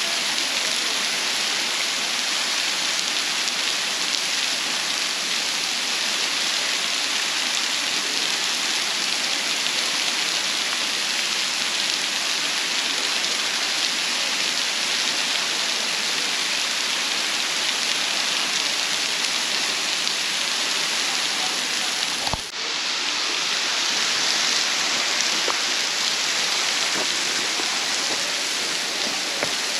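Waterfall crashing into its plunge pool: a loud, steady rush of falling water, with a brief knock about two thirds of the way through.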